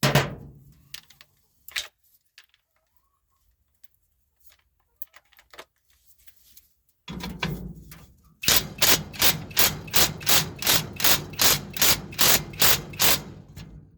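A hand ratchet wrench worked back and forth on a bolt holding a hay fork tooth to a square baler's feeder bar, a rapid even run of ratcheting strokes, about three to four a second, starting about eight seconds in. A single metal knock comes at the start.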